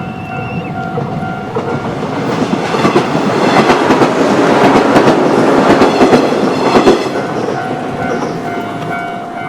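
JR West 115 series electric train passing over a level crossing, its wheels clattering over the rail joints, loudest about halfway through and then fading. A level crossing alarm rings steadily throughout, covered by the train at its loudest.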